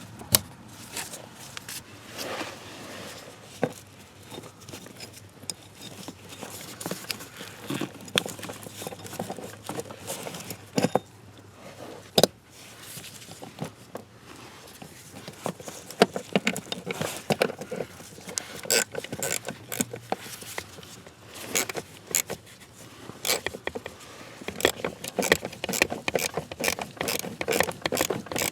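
Hand tools and parts being handled during car repair work: irregular metallic and plastic clicks, clinks and scrapes, growing busier about halfway through.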